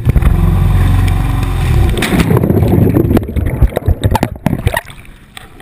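Muffled churning and gurgling of water around a camera plunged into a lake, with a heavy low rumble for the first two seconds, then scattered knocks as the sound fades near the end.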